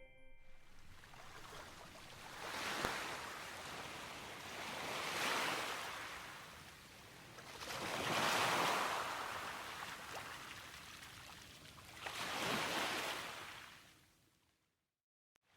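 Small sea waves of the Seto Inland Sea washing in, four gentle swells of surf rising and falling a few seconds apart, then cutting off to silence near the end.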